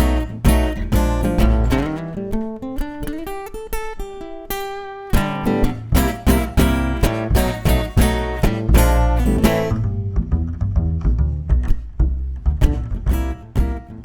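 Instrumental break of a live song: strummed acoustic guitar chords, with one note sliding steadily up in pitch over the first four or five seconds. The playing thins out around ten seconds in, then the strumming picks up again near the end.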